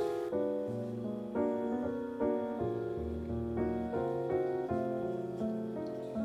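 Background piano music, single notes and chords following one another at an even pace.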